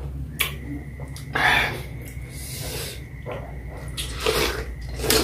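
Close-up wet eating sounds of a juicy peeled pineapple: bites into the fruit and sucking of its juice, in a few separate bursts. The biggest comes about a second and a half in, with another about four seconds in.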